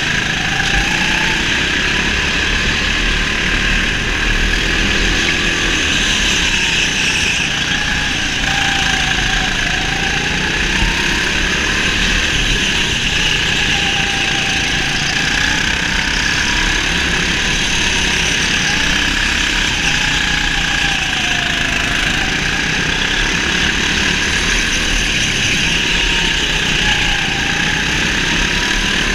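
Go-kart driven on a track, its motor pitch rising and falling every few seconds as the throttle comes on and off through the corners, over a steady loud running noise.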